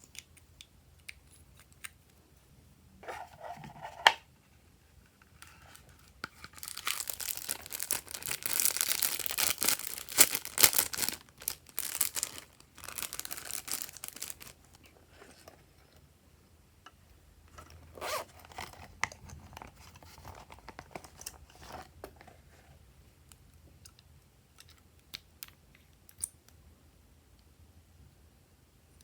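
Slime being stretched and squeezed by hand, giving crackly, tearing sounds. A long crackly stretch runs from about 7 to 14 seconds in, with shorter bursts before and after, and scattered small clicks and pops.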